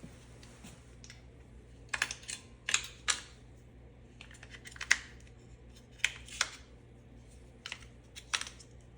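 AA batteries being swapped in a door lock's plastic battery pack: a string of sharp plastic clicks and clatters, in clusters about two to three seconds in and again around six and eight seconds.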